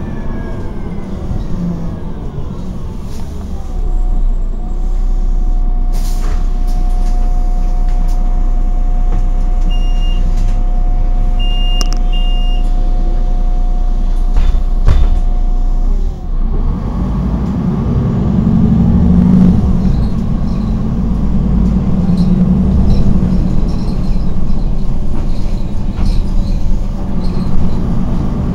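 City bus running, heard from inside the passenger cabin: a falling whine as it slows, then a steady hum while it stands, with a few short high beeps. About halfway through, the engine rises again under load as the bus pulls away.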